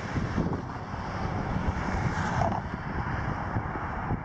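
Wind buffeting the microphone over a low, steady outdoor rumble.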